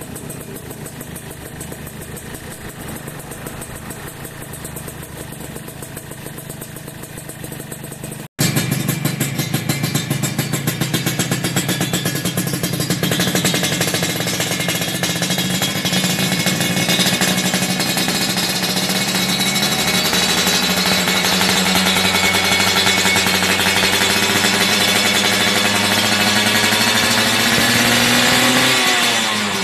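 Suzuki Satria 120 two-stroke single-cylinder engine running at a steady idle through a Bpazz standard-racing exhaust. About eight seconds in, a cut brings a second Satria, louder, idling steadily. The revs rise near the end.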